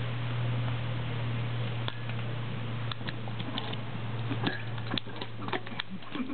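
Curly coated retriever puppy licking in a stainless steel dog bowl, then pawing and stepping into it. This makes scattered light clinks and taps that come more often in the second half, over a steady low hum.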